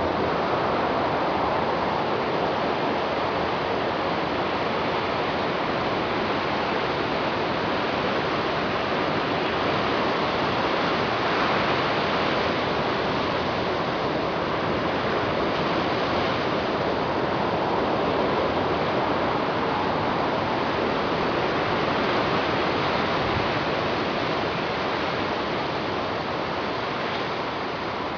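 Ocean surf breaking and washing up onto a sandy beach: a steady, even rush of water that swells and eases with the waves.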